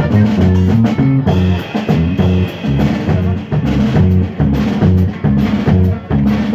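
Live norteño band playing a dance tune: a bass line and drum kit keep a steady bouncing beat, with guitar over it.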